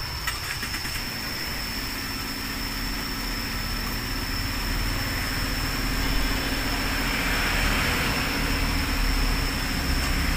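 A steady motor hum that grows louder and swells about seven to nine seconds in, after a few faint clicks at the start.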